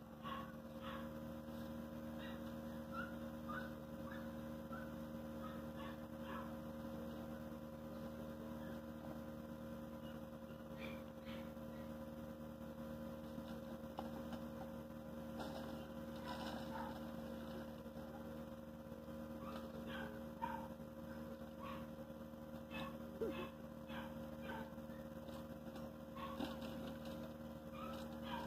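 Steady electrical mains hum of several pitches, with scattered faint short clicks and rattles over it.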